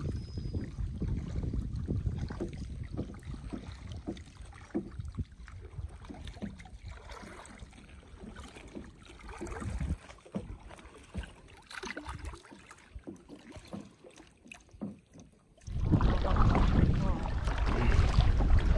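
Wind buffeting the microphone over water splashing and lapping around a kayak on choppy water. The wind noise eases off for a few seconds, then comes back suddenly and much louder near the end.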